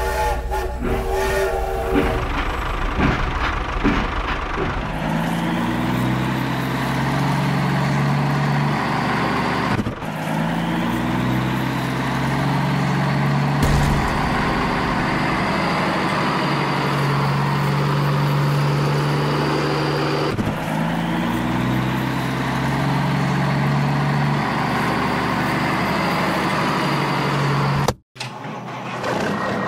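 A vehicle engine sound effect runs steadily under the toy tractor, repeating in a loop about every ten seconds, with a brief dropout near the end. In the first two seconds a chord-like horn or whistle sounds as the toy train comes out of its tunnel.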